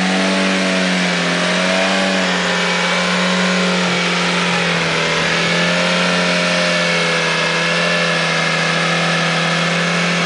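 Opel Kadett E engine held at high revs, almost steady with slight wavering, during a burnout as the front tyres spin in place.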